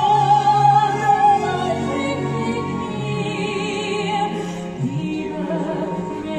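Music in an operatic style: long held notes sung with vibrato over a steady accompaniment.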